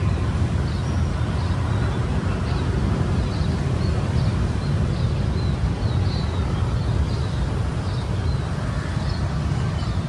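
A steady low rumble of background noise, with many short, high bird chirps scattered over it.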